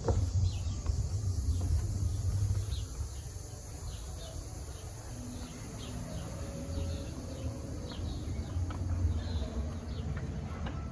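Outdoor ambience: a steady high insect drone with scattered faint chirps over a low, uneven rumble.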